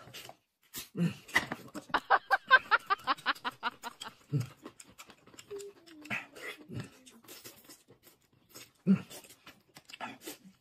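Close-miked eating sounds: wet smacking, chewing and noodle slurping, with a fast run of short smacks about two seconds in.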